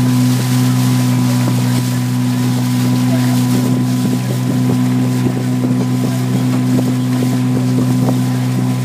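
Outboard motor of a coaching launch running at a steady cruising speed, a constant low hum, with wind buffeting the microphone.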